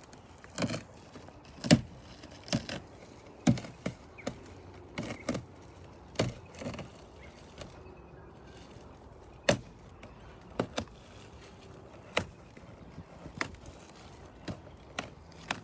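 Sharp knocks and taps at irregular intervals, about fifteen in all, as objects and packaging are handled and set down.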